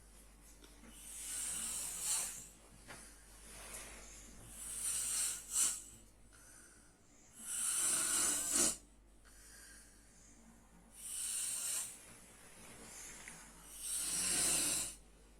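A sleeping person snoring, with about five loud rasping breaths roughly three seconds apart and quiet pauses between them. Some breaths carry a low rattle. This is the vibration of a narrowed airway.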